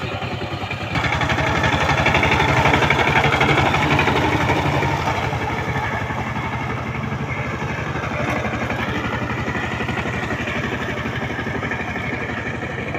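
Two-wheel power tiller's single-cylinder diesel engine running under load with a steady, rapid beat as the tiller works through a flooded paddy, growing louder about a second in.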